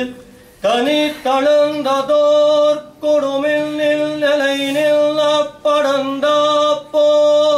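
A man's solo voice chanting a kattiyam, a temple proclamation of praise, in a loud sing-song recitation: a string of held notes on a nearly level pitch, broken by short pauses.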